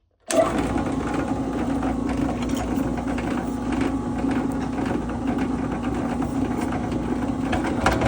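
Electric wire-stripping machine's 1500-watt motor running steadily with a constant hum, driving its rollers and knives as wire is fed through to strip off the insulation. The sound starts abruptly about a third of a second in.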